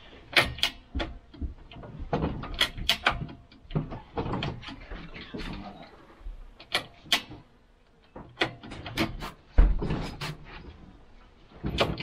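Irregular metallic clinks and knocks of wrenches and parts being handled on a moped engine as its bolts and muffler are tightened after reassembly. A single heavy thump comes near the end.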